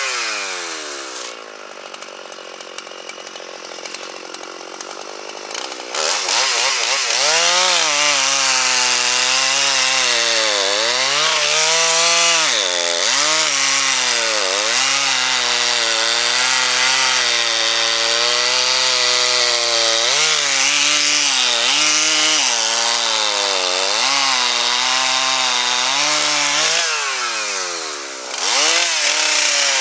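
Gas chainsaw's two-stroke engine winding down to idle, then revved up about six seconds in and cutting through pine wood. Its pitch sags and recovers again and again as the chain bites, with a brief drop and a fresh rev near the end.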